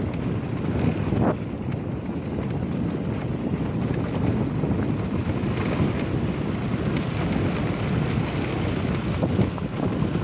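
Wind buffeting the microphone of a camera riding on a moving motorcycle: a steady rushing rumble.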